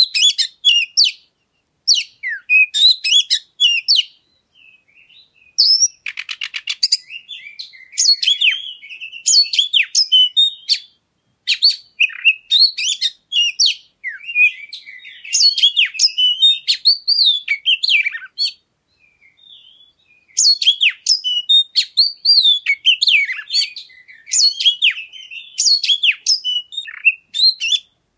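Oriental magpie-robin (kacer) singing a varied song of high whistles, up- and down-sweeping notes and chattering phrases, broken by pauses of a second or two, with a brief buzzy rattle about six seconds in. It is a recorded lure song (pancingan), played to get other kacer singing.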